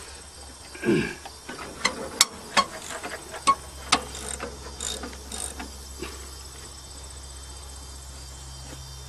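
A wrench clicking and clanking against the alternator bracket of an old car's engine as the loose, slipping fan belt is tightened: a short low knock about a second in, then about a dozen sharp metal clicks over the next few seconds that die away. Crickets chirp in the background.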